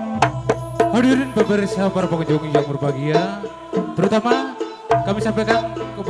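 Live Javanese reog/campursari ensemble playing: sharp hand-drum strokes under a wavering, sliding melody line over a low held note, which breaks off for about a second partway through.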